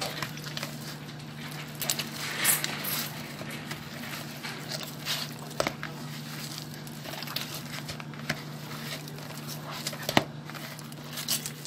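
Hands kneading freshly oiled pizza dough in a plastic bowl: irregular wet squelches and slaps at uneven intervals, over a steady low hum.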